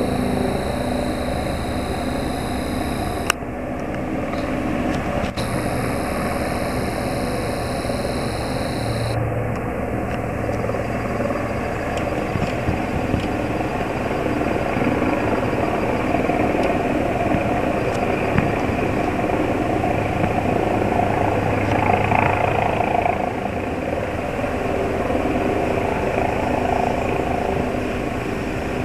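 Helicopters circling overhead at a distance: a steady drone of rotors and turbine engine that grows a little louder past the middle. In the first nine seconds a thin high whine cuts out and comes back once, with a sharp click a few seconds in.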